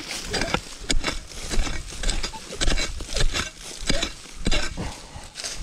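Long-handled shovel stabbing and scraping into dry, hard-packed soil and corn stubble. It digs out a metal-detector target with repeated crunching strokes, about two a second.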